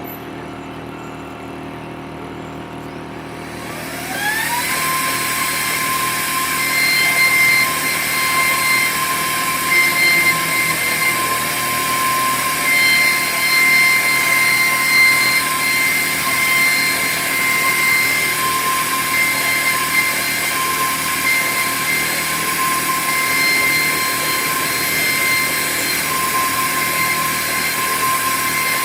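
CNC router spindle spinning up with a rising whine about four seconds in, then running at a steady high whine while it cuts MDF board, the cutting noise rising and falling under it.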